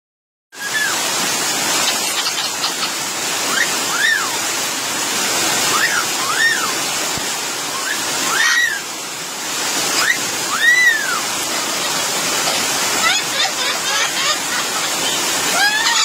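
Heavy rain falling steadily on foliage, a loud continuous hiss. Over it, a bird gives short whistled calls that rise and fall in pitch every second or two, coming in quicker runs near the end.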